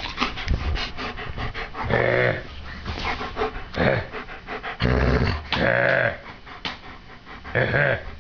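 A dog 'talking': about five drawn-out, growly moaning vocalizations in a row, the growl-back he gives when spoken to.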